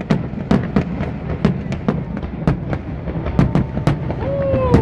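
Fireworks bursting in quick succession, about three sharp bangs a second over a steady low rumble, with a short falling tone near the end.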